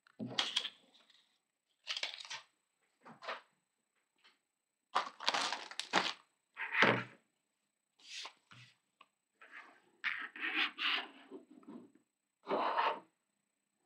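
Hands handling paper tags, lace and fabric scraps and a plastic bag on a cutting mat: a string of short rustles and light knocks, one every second or two, with a longer run of rustling near the end.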